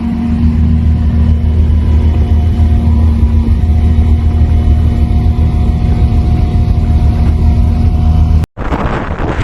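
A motor vehicle engine running steadily with a low, even hum. Near the end it cuts off abruptly to wind buffeting the microphone.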